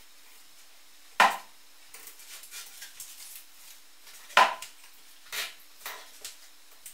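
Hand work on wood at a bench: two sharp knocks about a second in and again about three seconds later, then a few softer taps and light rustling, as an oak edge-banding strip is fitted and pressed against the edge of a spruce plywood board.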